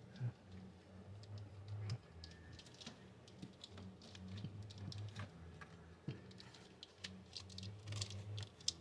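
Faint, irregular light clicks and small taps of hands and a screwdriver working a distributor cap loose, over a low hum.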